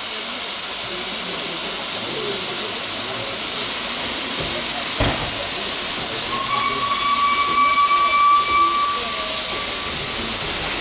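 Steady hiss of escaping steam from the 231 G 558 Pacific steam locomotive, with a single knock about five seconds in. From about six seconds in, the locomotive's whistle sounds one steady note for about three and a half seconds.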